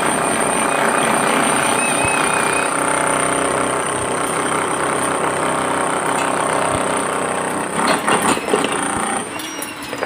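Electric jackhammer chiselling old concrete: a loud, continuous hammering rattle with a steady high whine, breaking into separate knocks near the end.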